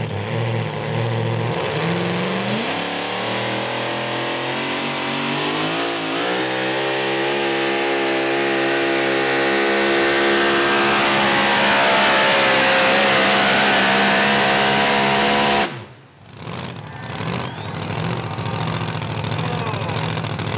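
Supercharged engine of a Ford pulling truck at full throttle under load as it drags a weight-transfer sled. The revs climb over the first few seconds and hold high. About three-quarters of the way through, the throttle is cut sharply and the engine drops to a low rumbling idle, which marks the end of the pull.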